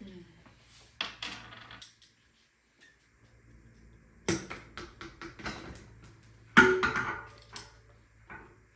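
Hard objects being handled: a few separate knocks and clattering rattles, the loudest about two-thirds of the way through, some ringing briefly like metal parts or tools being set down.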